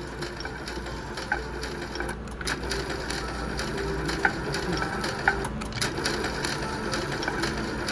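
Slot machine spinning, its reels giving off fast mechanical-sounding clicks with a few short high chimes, over steady casino background noise.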